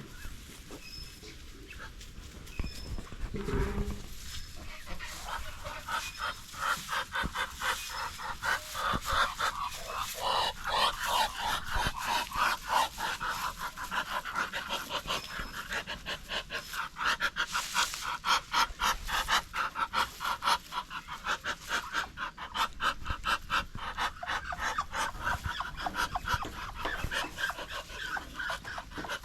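Muscovy duck giving a long run of rapid breathy hissing puffs, quiet at first and louder from about five seconds in. A short low knock sounds about three and a half seconds in.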